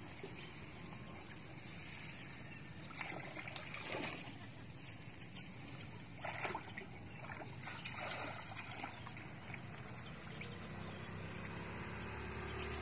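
Water splashing and sloshing in short bursts, a few times, over a faint steady background; near the end a low motor hum comes in.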